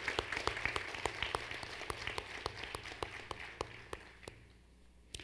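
Applause from a small audience, the separate claps easy to pick out, thinning and dying away about four seconds in, with one last lone clap near the end.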